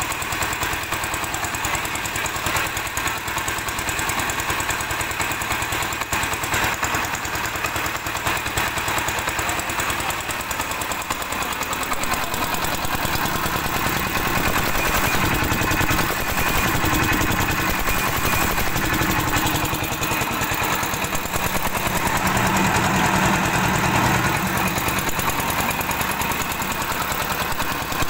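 Diesel engine of a concrete mixer running steadily with a fast, even beat. About twelve seconds in it gets fuller and a little louder as a hand works the lever on the engine.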